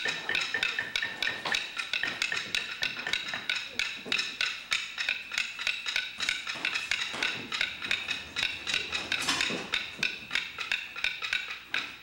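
A length of wood used as a small hammer tapping quickly on the ends of a bundle of paper firecracker tubes, about four or five dry wooden taps a second, crimping the tube paper down into each tube.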